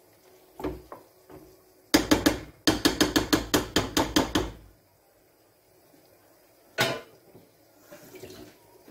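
Wooden spatula knocking against a frying pan of simmering meat sauce. A few knocks come about two seconds in, then a quick run of about eight sharp knocks, four or five a second, then one more knock near the end.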